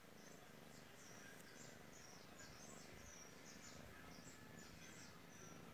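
Near silence with faint, high-pitched chirping from small birds in the background: many short notes, some sliding down in pitch, in a loose irregular series.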